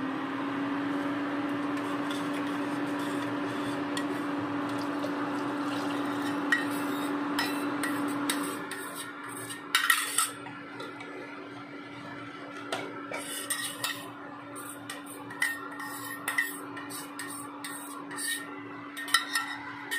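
Steel ladle clinking and scraping against the pressure cooker as thick coconut milk is stirred into a vegetable stew, with scattered clinks in the second half. Under it runs a steady electric motor hum that is louder for the first eight seconds or so, then continues more softly.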